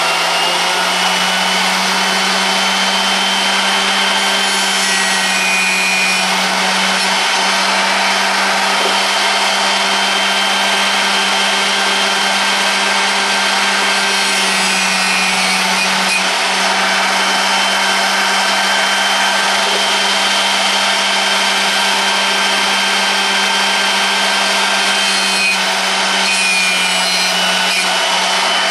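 Electric drill-bit sharpener (SRD drill pointer) running steadily, its motor humming while a large drill bit, about half to 9/16 inch, is ground against the spinning wheel with a steady grinding hiss.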